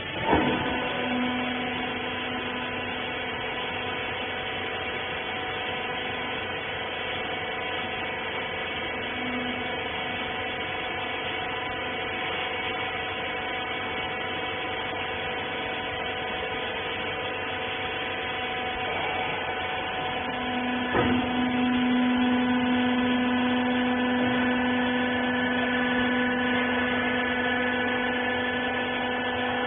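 Rag baler's electric hydraulic power unit running with a steady whine made of several even tones. A knock comes just after the start and another about twenty-one seconds in, after which the lower tone grows louder and holds.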